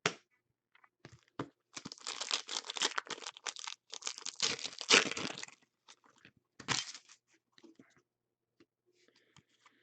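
Card pack wrapper being torn open and crinkled by hand: a sharp crackle, then about four seconds of rustling and tearing, and a short crinkle near the end.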